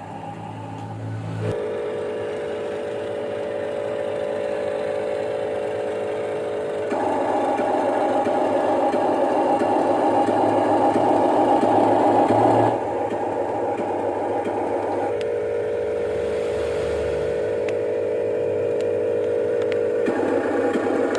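Whine of a radio-controlled construction model's electric motor and hydraulic pump, holding steady and then stepping to a new pitch and loudness several times as the machine's load changes, with a few light clicks.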